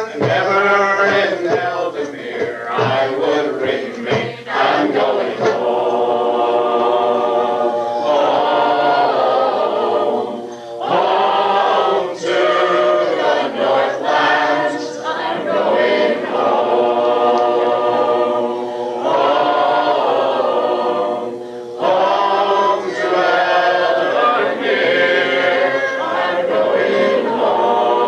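Choir singing a song in harmony, in long held lines with short breaks between phrases.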